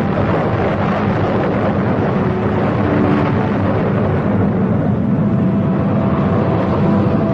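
Loud, steady rumbling roar with no breaks, with a few faint steady tones showing through.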